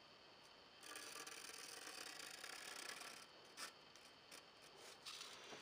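Faint pencil strokes on paper: one long scratchy stroke of about two seconds, then several shorter strokes and light taps.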